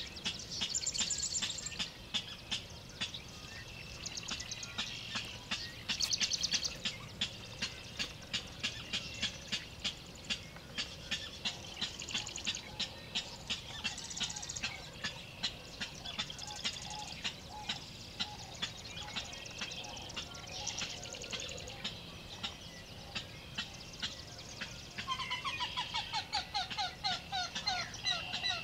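King rail calling, out of sight in the marsh: a long, steady series of sharp call notes, about three a second. Other marsh birds sing higher over it, and near the end a run of lower, repeated call notes comes in.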